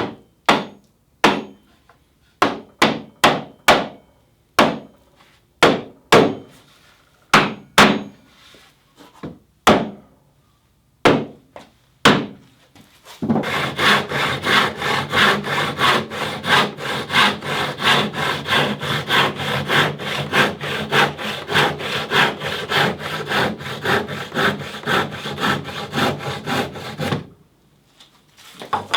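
A series of sharp wooden knocks at irregular spacing, then a hand saw cutting wood with steady, rhythmic back-and-forth strokes for about fourteen seconds before stopping.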